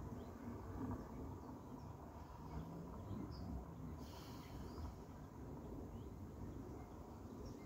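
Rural outdoor ambience: faint, scattered short bird chirps over a steady low rumble.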